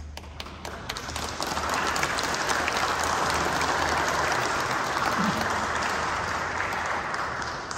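A congregation applauding: a few scattered claps at first, swelling into full applause that holds, then dies away near the end.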